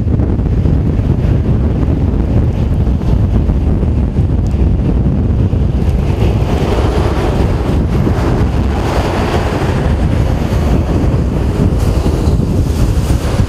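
Strong storm wind buffeting the microphone: a steady low rumble with a louder, hissier gust through the middle.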